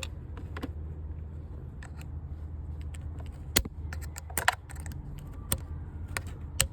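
Scattered sharp clicks and small metallic ticks of a tool working the retaining clips out of a BMW E46 upper radiator hose, with the loudest clicks about three and a half seconds in, around four and a half seconds, and just before the end. A steady low hum runs underneath.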